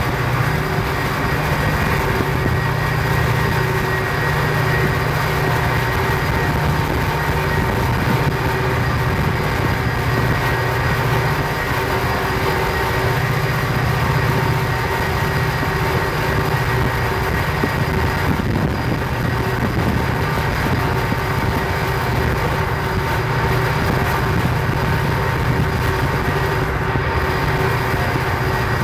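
Florida East Coast freight train's diesel locomotives running steadily under power, heard from a vehicle pacing alongside, with road noise mixed into a constant drone.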